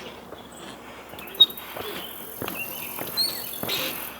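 Insects droning steadily at a high pitch, with a few short bird chirps and the knock of footsteps on a swinging footbridge.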